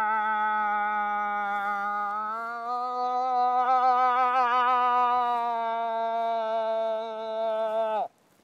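Cow moose call blown by a hunter to draw in a bull: one long moan with a wavering pitch that steps up slightly a couple of seconds in, then drops away sharply and stops near the end.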